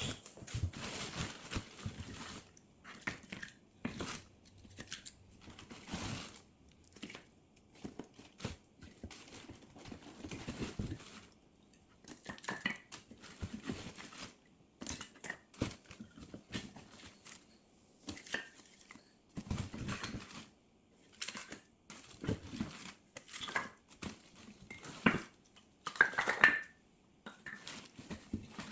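Dry split firewood burning, crackling and popping at irregular intervals, with a cluster of louder pops near the end.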